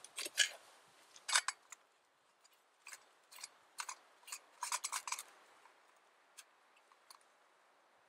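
Short metallic clicks and scrapes of a backpacking gas canister stove being put together: the burner is threaded onto the gas canister and the pot is fitted on top. The clicks come in small irregular clusters, the densest about halfway through.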